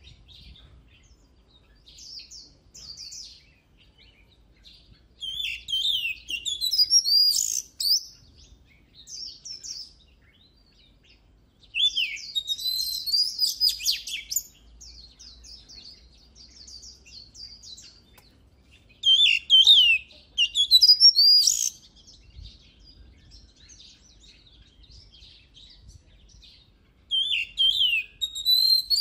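Oriental magpie-robin singing: bursts of rapid, varied whistled notes and trills, each lasting one to three seconds, separated by pauses of a few seconds.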